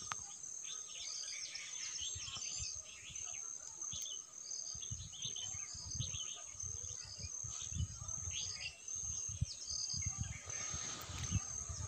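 Birds chirping and calling in short repeated phrases over a steady high insect drone, with low buffeting on the microphone in the second half.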